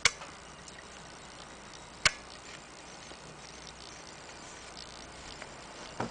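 Two sharp clicks, one right at the start and one about two seconds in, over a faint steady hiss with a few faint ticks.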